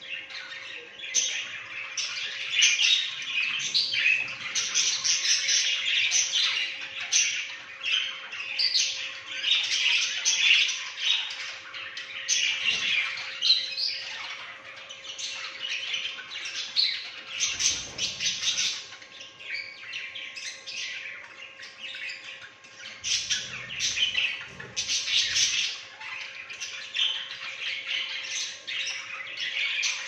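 A flock of budgerigars chattering continuously, many overlapping chirps, warbles and squawks, with a faint steady hum beneath.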